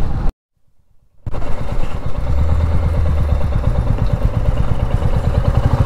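Motorcycle engine running with even exhaust pulses as the bike is ridden slowly, with wind and road noise over it. The sound drops out for about a second near the start, then comes back.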